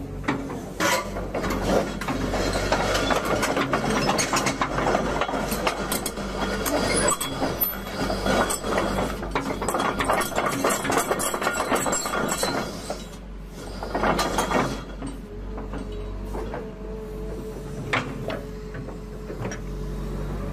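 Kobelco SK125SR hydraulic excavator running as it swings and works its boom, arm and bucket. The engine hums steadily under a stream of metal clanking and rattling from the machine. The rattling is busiest for the first dozen seconds, comes again briefly about fourteen seconds in, and there is a single knock near the end.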